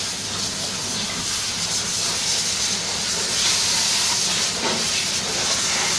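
High-pressure water hissing steadily from the nozzles of an underbody washing lance, spraying the underside of a car, a little louder from about three seconds in.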